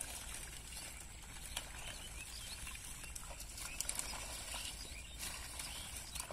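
Hands pushing and groping through water hyacinth in shallow water: rustling leaves, small splashes and scattered soft clicks.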